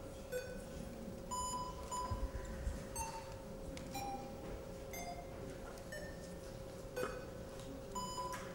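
Electronic voting system beeping as votes are cast: about a dozen short beeps at differing pitches, spaced irregularly, over a steady faint tone.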